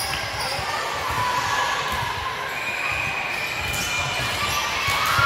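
Gymnasium hubbub during volleyball play: players' voices and calls echoing in a large hall, with volleyballs bouncing on the hardwood floor and a few sharp slaps and knocks.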